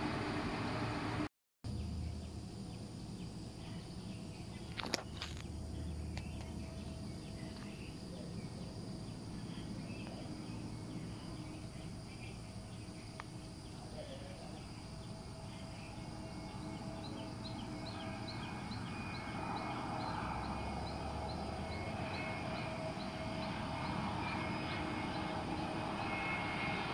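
Distant jet engines of an Airbus A320neo (CFM LEAP-1A) on final approach, heard over a steady outdoor background and growing slowly louder toward the end. A short run of faint, high, evenly spaced chirps comes in just past the middle.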